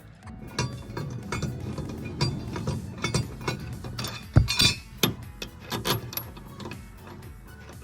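Irregular metal clinks and knocks of a socket wrench and steel mower blades being worked by hand, the loudest a little past four seconds in, over faint background music.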